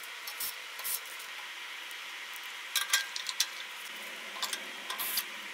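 Faint scattered clicks and scrapes of a screwdriver and wire connectors being worked on a band saw's wiring, a few in a cluster about three seconds in and again near the end, over a steady hiss.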